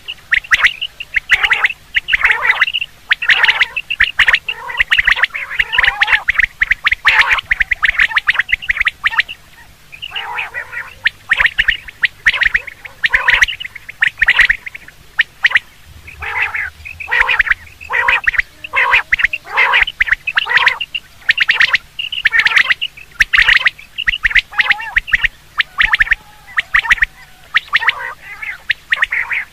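Common quail calling over and over: quick runs of short, sharp notes with brief gaps between runs.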